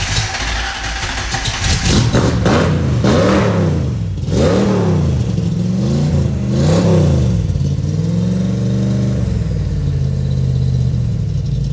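Stock Ford 302 small-block V8 exhaling through a side-exit exhaust pipe, freshly started and blipped about six times, its pitch rising and falling with each rev, then settling into a steady idle near the end. The fuel-injection computer had been reset by cutting the battery power, which the owners say is why it was hard to start.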